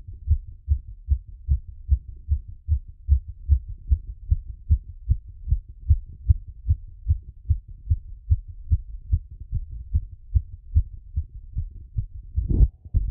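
Human heartbeat heard through a stethoscope after exercise: fast, regular lub-dub beats, low-pitched and evenly spaced. Near the end a brief louder rubbing noise sounds over the beats.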